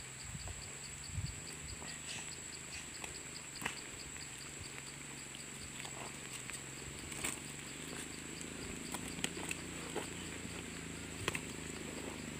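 Insects buzzing steadily at a high pitch, with a chirp repeating about four times a second that fades out a few seconds in. Scattered light clicks and scuffs of footsteps on a dirt track, over a low steady hum.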